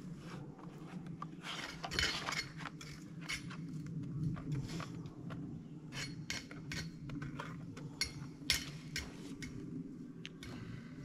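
Irregular light metallic clicks and clinks as rifle cartridges and gear are handled and sorted, with a few sharper clicks around two, six and eight to nine seconds in.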